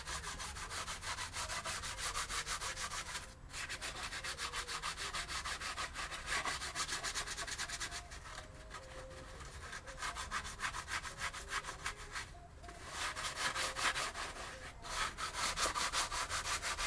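Fine-grit abrasive pad rubbed by hand over the gasket face of a Renault F7P 1.8 16v cylinder head, in fast, even back-and-forth strokes with a few brief pauses. This is a light clean of old head-gasket residue; no metal is being removed.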